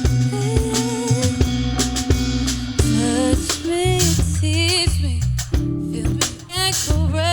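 Live R&B band playing an instrumental passage: electric bass, drum kit and guitar, with a melodic line sliding in pitch over the steady bass and drums.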